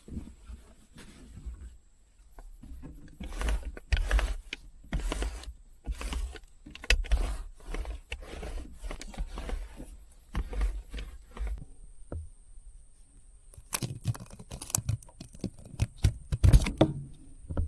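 Camping gear being handled and packed up: irregular knocks, clatter and rustling, with heavier thumps near the end.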